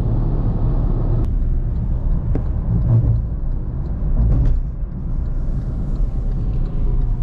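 Steady low rumble of road and engine noise inside a moving car's cabin, with a light click about a second in.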